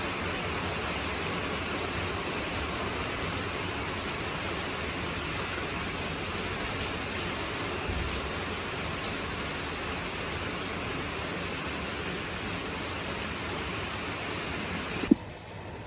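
Steady hiss of heavy rain. Near the end a single sharp click, after which the rain sounds quieter and duller.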